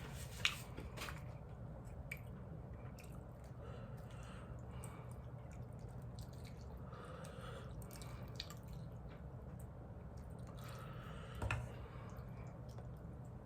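People eating noodles: faint chewing with scattered small clicks, and one louder knock about eleven seconds in, over a low steady hum.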